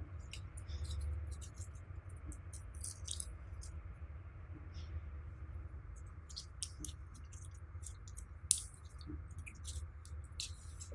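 Slime being mixed and squished by hand, making irregular sticky clicks and small pops, over a steady low hum.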